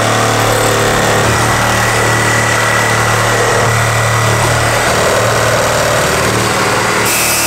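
Cordless reciprocating saw running continuously as it cuts through a doubled wooden wall plate, a steady hum under the rasp of the blade in the wood.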